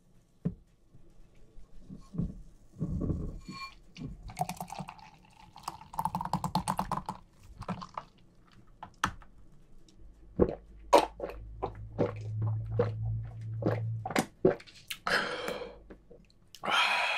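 Beer poured into a tall glass, fizzing and splashing, picked up close to the microphone. Then comes drinking, with a run of sharp swallowing clicks in the second half and a breathy exhale near the end.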